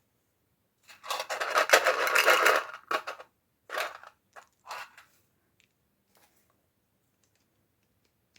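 Packaging being handled in an unboxing: a dense crackling rustle for about two seconds, then several short rustles.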